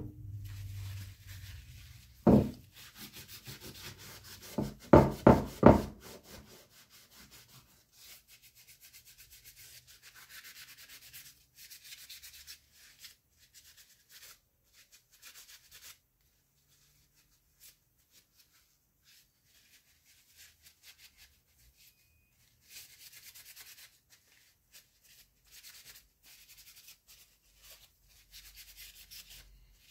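Paper towel rubbing over the bare metal hilt of a K98 bayonet in bouts of quick strokes. The loudest sounds come early: a knock in the first seconds and a quick run of about five knocks about five seconds in.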